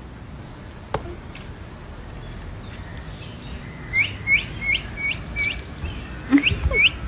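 A quick series of short, high, rising chirps, about three a second, starting about four seconds in, over a steady low outdoor background.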